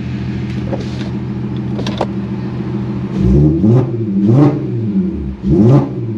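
Car engine with an aftermarket exhaust, heard from inside the cabin: idling steadily, then revved three times in quick throttle blips, each rising and falling, starting about three seconds in.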